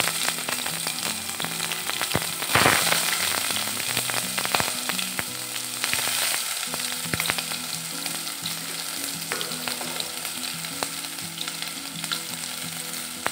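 Sliced onions sizzling and crackling in hot mustard oil in a pot, the first stage of frying them until brown. The sizzle is strongest at the start, with a louder burst of spitting about two and a half seconds in, then eases off gradually.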